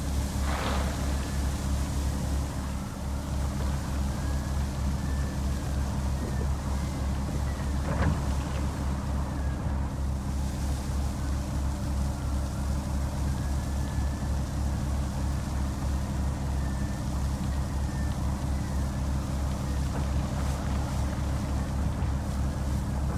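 Heavy truck's diesel engine running steadily at an even, low idle-like pace, with two brief knocks, one near the start and one about eight seconds in.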